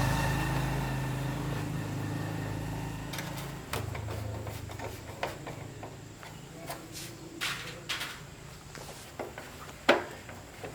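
A four-stroke motorbike engine runs and fades away over the first three seconds or so. A low hum stays, with a handful of scattered sharp clicks and knocks; the loudest comes near the end.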